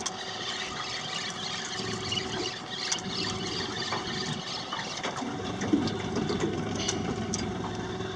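Water lapping against an aluminium boat hull over a steady idling outboard motor, with a few light knocks.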